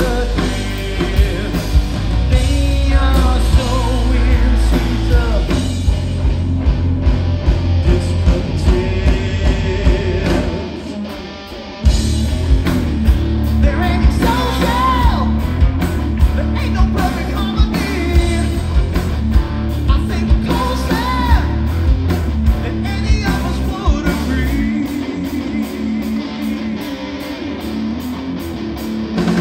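Live hard rock song: a male singer over electric guitar and drums. About ten seconds in, the heavy low end falls away and the level dips briefly, then the full band crashes back in at about twelve seconds.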